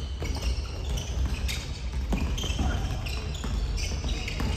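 Live basketball play on a hardwood gym court: a ball thumping on the floor at an irregular beat, with short high-pitched squeaks and scattered shouts from players.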